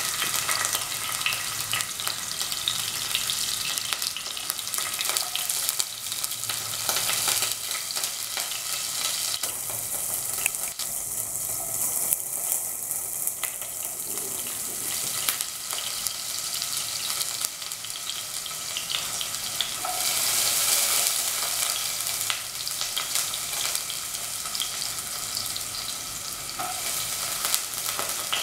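Sliced onions frying in hot oil in a pan: a steady sizzle with fine crackles, easing a little in the middle and picking up again.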